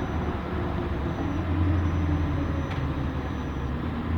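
2004 Blue Bird school bus driving, its engine and road noise a steady low drone heard from inside the cabin, swelling a little about a second and a half in. A faint thin high whine comes and goes.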